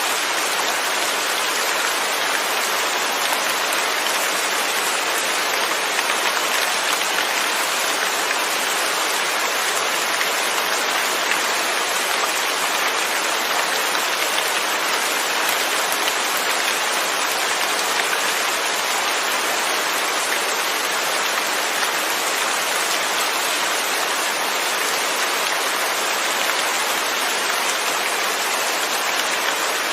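Steady rain falling, a dense even patter with no thunder.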